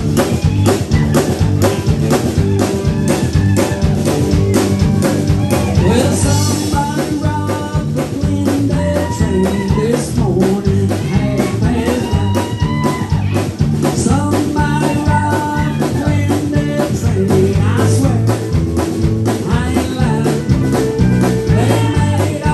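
Live band playing amplified country-rock: electric guitar, bass guitar and drum kit over a steady beat.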